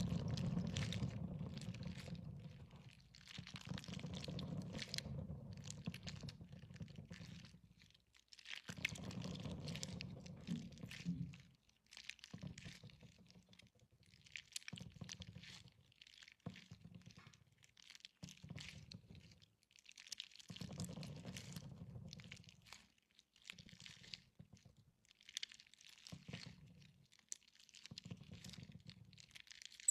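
Slime squeezed and worked by hand in repeated bouts, its air bubbles popping in wet crackles and clicks.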